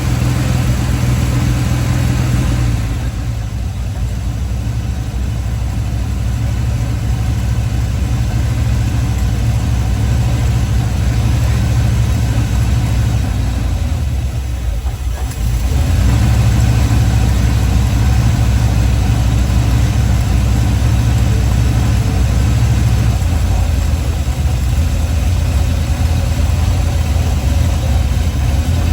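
Chevrolet 350 small-block V8 running at a steady idle with a low rumble. About halfway through the sound dips briefly, then settles slightly louder.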